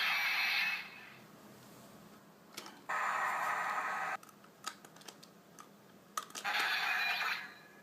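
DX Dice Saber toy playing short electronic sound effects from its small speaker, with sharp plastic clicks of its mechanism in between: one sound about three seconds in, a run of clicks, then another sound near the end.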